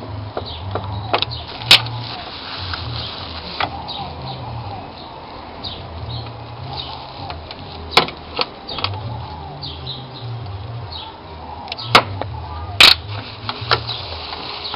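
A handful of sharp metallic clicks and knocks of hand tools and parts being handled on an engine's connecting rod, scattered over several seconds above a low rumble.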